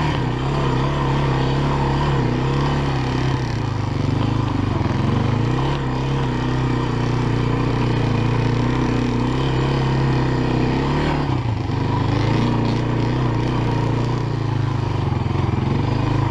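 Honda FourTrax ATV engine running while riding, steady under way, its note dropping and then picking up again a couple of times as the throttle is eased and reopened.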